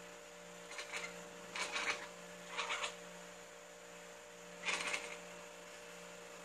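Tabby cat chirping and chattering in four short bursts, the excited hunting call of a cat watching prey such as a fly, over a steady electrical hum.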